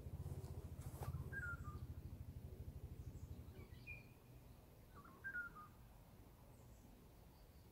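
Wild birds calling in the woods: three short chirping phrases, spaced a couple of seconds apart. A low rumble underlies the first half and then fades.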